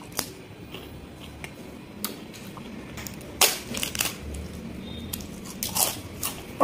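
Crisp fried papad being snapped apart by hand and crunched, with a few sharp crackles about halfway through and again near the end, and quieter eating noises between.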